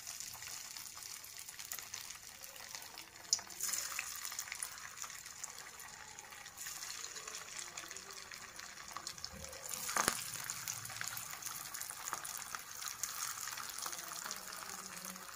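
Hara bhara (spinach and pea) kebab patties deep-frying in hot oil in a kadai: a steady sizzling hiss with fine crackling. Louder bursts of sizzle about three and a half seconds in and again about ten seconds in, as more patties go into the oil.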